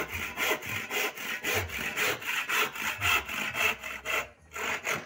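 Hand saw cutting through a wooden board in quick, even back-and-forth strokes, about three a second, with a brief break a little after four seconds before a few more strokes.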